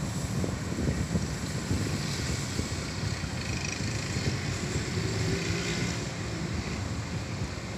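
Thunderstorm ambience at night: a steady low rumble with a hiss above it, with no sharp thunderclap.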